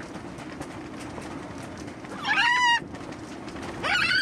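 A pet parrot calling twice, two loud squawks of about half a second each, the second rising in pitch, over a steady background rush.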